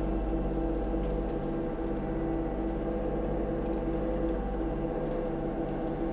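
Kubota U35-4 mini excavator's diesel engine running steadily as the hydraulic arm and bucket push a stump and brush pile.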